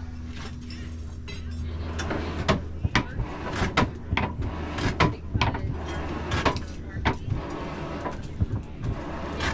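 Blacksmith's hammer striking hot iron on an anvil while forging nails: a run of sharp, irregularly spaced blows that starts about two seconds in, over a steady low hum.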